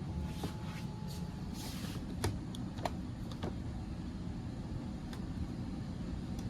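Steady low hum of running HVAC equipment, with a few light clicks and taps about two to three and a half seconds in.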